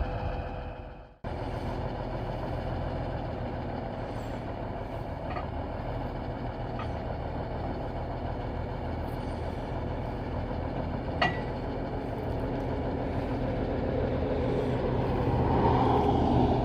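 Heavy truck engine idling steadily. The sound cuts out briefly about a second in, a single sharp click comes about eleven seconds in, and the running grows louder near the end.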